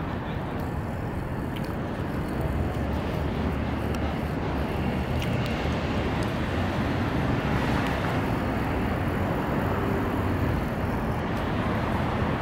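Steady low rumble of city background noise, growing slightly louder a couple of seconds in.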